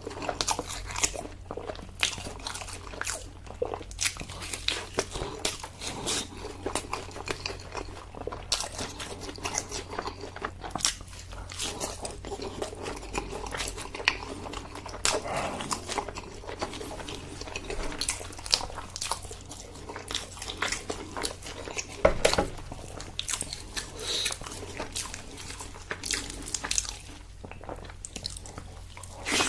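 Close-miked chewing and biting of braised pork leg, a steady stream of short crunchy, clicky mouth sounds with a louder bite about twenty-two seconds in, over a steady low hum.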